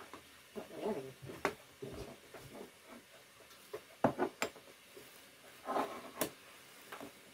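Kitchen cupboards and drawers being searched through: scattered knocks, clicks and rattles of things being moved about, the loudest knock about four seconds in.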